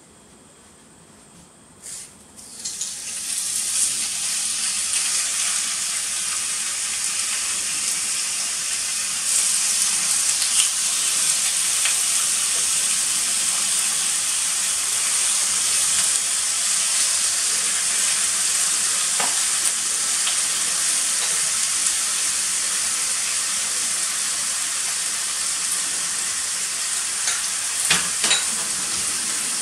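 Thin slices of beef shoulder loin sizzling steadily in rendered beef suet in a cast-iron sukiyaki pot. The sizzle starts about two seconds in as the meat goes into the hot pot, and a few light clicks come near the end.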